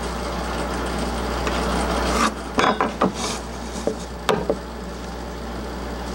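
Pencil scraping as lines are drawn on paper, with a few sharp clicks and knocks as the square is handled, about two seconds in and again near the middle, over a steady low hum.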